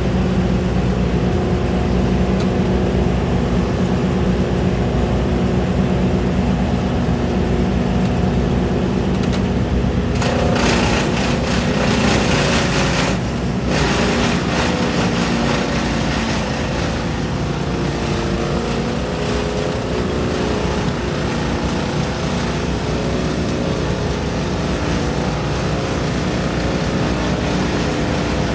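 Engines of a Vermeer mini skid steer and a Vermeer brush chipper running steadily together. A stretch of brighter, hissier noise comes in about ten seconds in and stops sharply a few seconds later.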